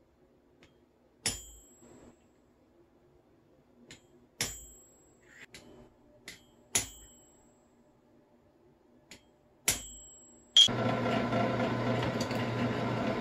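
Small hammer tapping a center punch on a brass plate against an anvil: four sharp ringing metal strikes a few seconds apart, marking hole positions. Near the end, a drill press motor switches on and runs with a steady hum.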